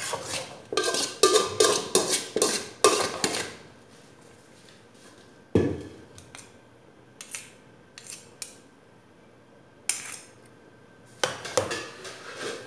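Metal spoon clanking and scraping against a large aluminium pot as vegetable noodles are mixed. A dense run of clatter opens the stretch, followed by a lull with one knock and a few scattered clicks, then more clatter near the end.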